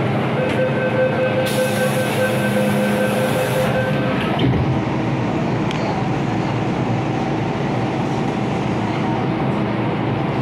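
MTR Kwun Tong Line M-Train heard on board, running with a steady rumble and steady electric whining tones. A high hiss of air sounds from about a second and a half in until nearly four seconds, and a single knock comes at about four and a half seconds.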